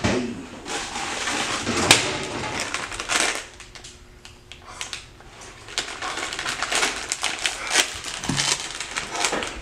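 Foil chip bag crinkling and crackling in the hands, in dense runs with a quieter pause in the middle.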